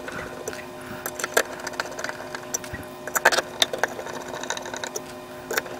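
Scattered clicks and taps of 3D-printed plastic clock-frame parts and a wood screw being handled as a keyhole hanger is screwed on, over a steady even hum.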